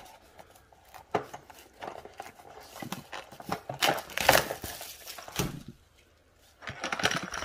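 Plastic shrink wrap being torn and peeled off a cardboard box: irregular crinkling and crackling of the film, with knocks from handling the box, loudest about four seconds in. It pauses briefly before more handling near the end.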